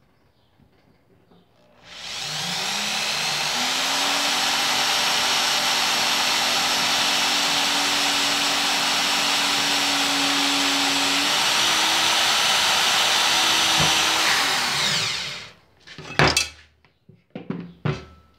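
Bosch GSR 7-14 E corded drill/driver driving a Phillips-head self-drilling screw into steel tubing. The motor spins up about two seconds in, runs steadily under load for about thirteen seconds and winds down, followed by a few short knocks. The screw takes a little effort but goes in.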